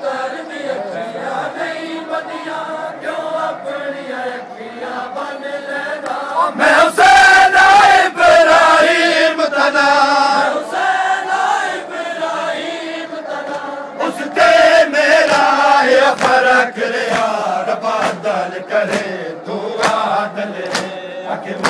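Crowd of men chanting together in unison. From about two-thirds of the way in, the chant is joined by sharp strikes in a steady beat, roughly two a second.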